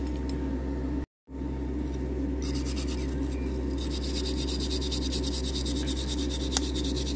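Hand-held brass wire brush scrubbing diecast metal toy-truck parts in quick back-and-forth strokes, taking off the paint left after caustic stripping. A brief cut to silence comes about a second in, and a steady low hum runs underneath.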